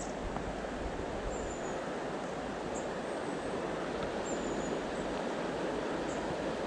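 Steady rush of a shallow mountain river flowing over stones, with a few faint, short high chirps.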